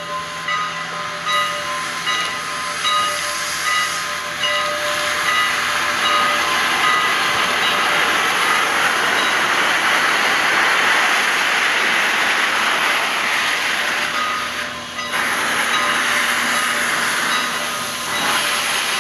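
Canadian National No. 89, a 2-6-0 steam locomotive, starting away with its cylinder cocks open, venting steam in a loud, steady hiss that is strongest in the middle.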